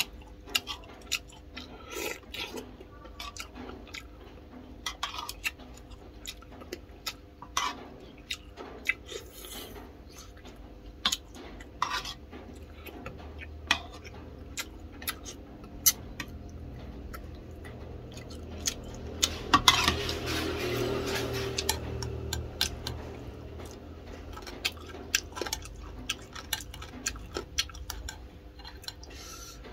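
A metal spoon clinking and scraping against a ceramic soup bowl in many short sharp clicks, with a longer, louder noisy stretch about two-thirds through.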